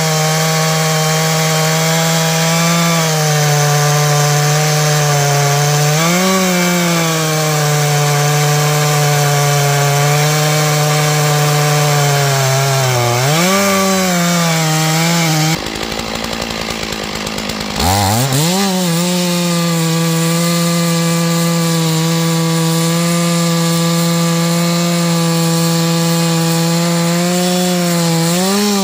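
Stihl MS461 single-cylinder two-stroke chainsaw cutting green fir at high revs, its pitch sagging under load and recovering a few times. About halfway through it drops off for about two seconds, then revs back up and carries on cutting.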